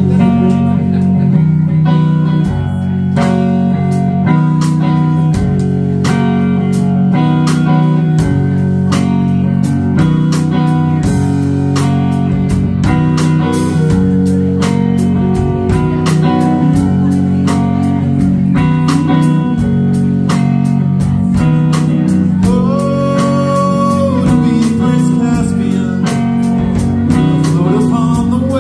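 Live rock band playing an instrumental passage: electric guitar, electric bass, keyboard and drum kit with a steady beat. Late on, a held note is bent up and then back down.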